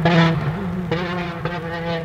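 Citroën DS3 R5 rally car's turbocharged four-cylinder engine accelerating hard. The note breaks off and picks up again about a second in.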